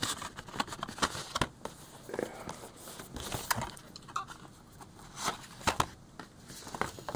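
Plastic Blu-ray case being slid out of its cardboard slipcover and handled: a string of irregular clicks and taps with soft rustling of card and plastic between them.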